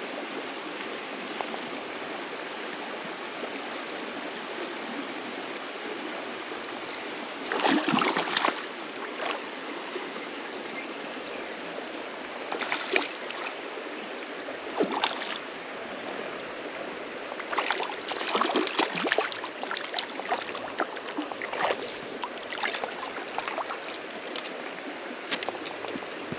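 Steady rush of a shallow, rocky creek's flowing water, broken several times by short splashes in the water, most of them in the second half.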